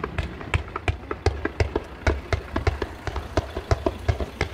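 Fireworks firing in a rapid, irregular barrage: many sharp pops and cracks, several a second, from low-fired comets and crackling effects, over a low continuous background.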